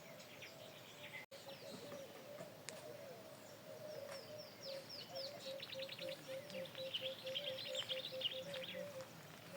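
Birds chirping, their calls gathering into a fast run of high chirps in the second half, with a faint steady note underneath that starts to pulse about halfway through.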